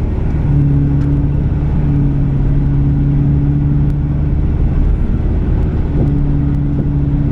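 Mitsubishi Delica L400 Space Gear 4x4's engine heard from inside the cabin, pulling away from a stop and accelerating with a steady hum. The note breaks off briefly twice, near the start and about five to six seconds in, as the gearbox changes up.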